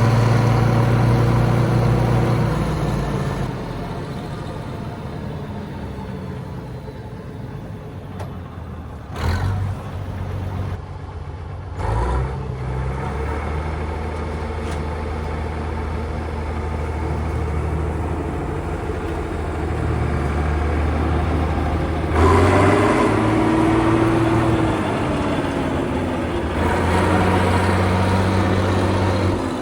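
Motor vehicle engine running with a steady low hum. It changes abruptly about nine and twelve seconds in, and a falling whine is heard around twenty-three seconds in.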